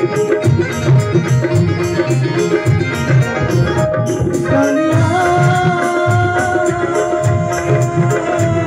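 Live folk music from a seated ensemble: hand drums keep a steady beat with sharp high clicks, under a held melody line that steps up in pitch about halfway through and then sustains.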